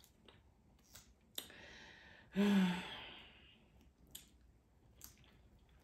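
A woman takes a breath in and lets out a short voiced sigh that fades away, with a few soft clicks around it.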